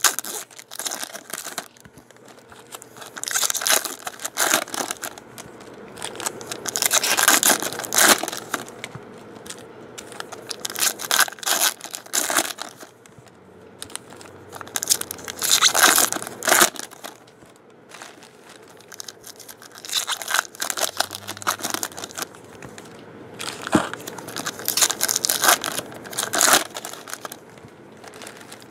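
Foil wrappers of 2013 Bowman Draft baseball card packs crinkling and tearing as packs are ripped open and handled, in repeated bursts every few seconds.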